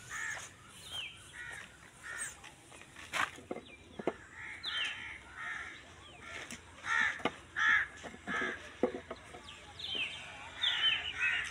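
Birds calling: a string of short, harsh calls, busiest in the second half, over a few sharp clicks and taps.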